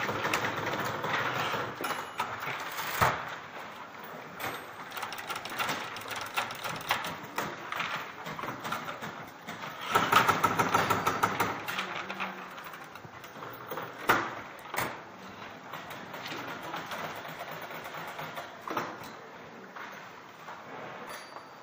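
Several manual typewriters clicking and clattering as the typists set the left and right margin stops on their carriages, with a denser run of clatter about ten seconds in and a few single sharp knocks.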